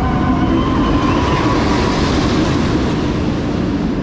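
A wooden roller coaster train running over its wooden track close by: a steady, loud rumble with a hiss that swells about halfway through.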